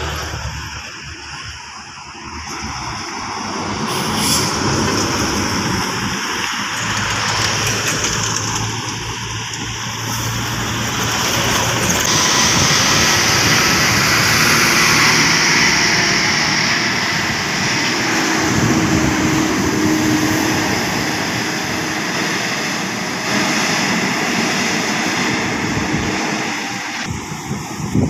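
Diesel coach buses driving past one after another, engine and tyre noise swelling as each draws near and easing as it goes by.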